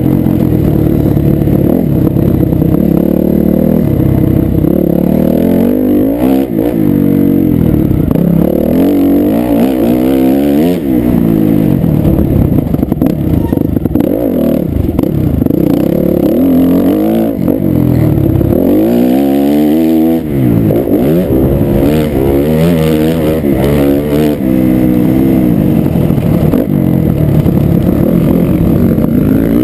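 Dirt bike engine heard from the rider's helmet camera, revving up and down over and over as the bike is ridden hard around a dirt track, with short dips in pitch between the revs.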